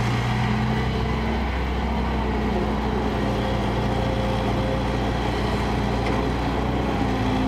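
Kobelco crawler excavator's diesel engine running steadily under hydraulic load as the arm dumps soil and swings back to dig, its note shifting a little about a second and a half in.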